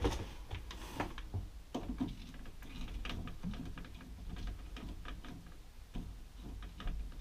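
Irregular small clicks and taps of a screwdriver and hands working the hose clamp on the raw-water strainer's inlet hose, loosening it to disconnect the water inlet.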